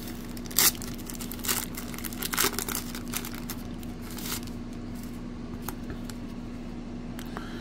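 Hands tearing open and crinkling the wrapper of a 1990 Pro Set football card pack: a sharp rip about half a second in, then scattered crinkles that thin out toward the end, over a faint steady low hum.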